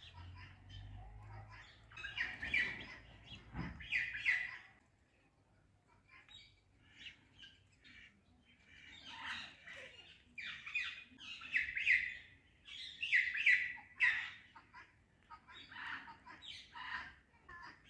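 Ringneck parrot calling in bursts of short, rapid, high-pitched calls, with a lull of a few seconds about a quarter of the way in.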